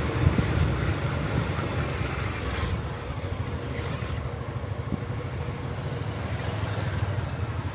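An engine running steadily at low revs, a continuous low rumble.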